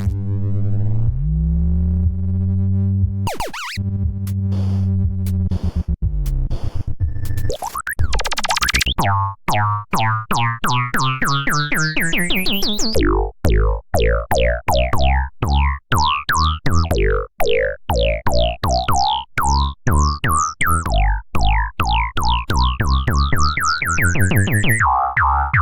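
Oscilloscope music: synthesizer tones built so their waveforms draw images on an X-Y oscilloscope. It opens on steady low tones, then turns into a fast train of clicks with layered tones sliding steadily upward in pitch.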